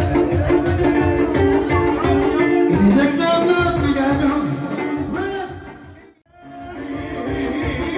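Lively dance music from a keyboard-led band with a steady beat; it fades almost to silence about six seconds in and comes back up near the end.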